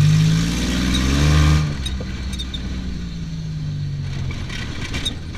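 Off-road vehicle's engine accelerating, its pitch rising for about a second and a half, then dropping as the throttle eases and running steadier, with scattered knocks and rattles from the rough ride.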